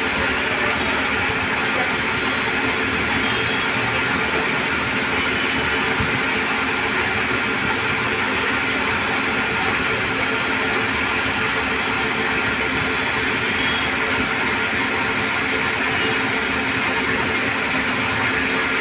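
CNC lathe running steadily: a continuous machine noise with a faint steady hum underneath.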